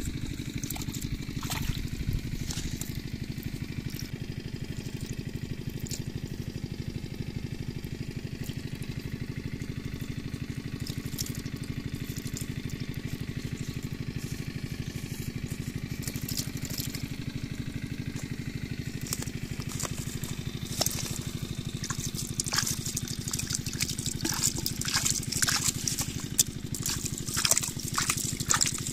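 Water splashing and trickling as it pours out of a plastic-bottle fish trap into a plastic mesh basket, growing busier and louder in the last third. Under it runs a steady low mechanical drone.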